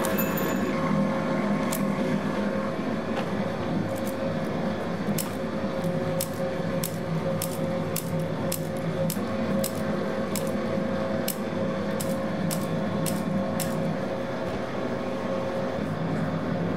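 Electric pasta-making machine running with a steady hum, with a light clicking about twice a second that stops about three quarters of the way through.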